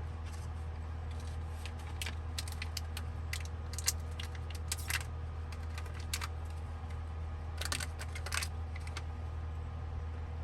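Scattered light clicks and taps, some in quick runs, over a steady low hum.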